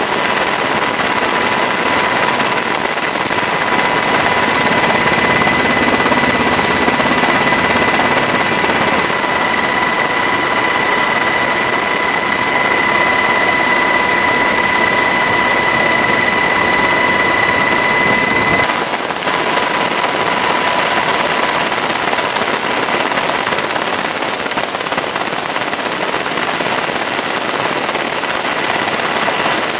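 Helicopter noise heard from aboard the aircraft: a steady, loud rush of rotor and engine noise with a constant high whine on top. The whine shifts briefly a little past halfway.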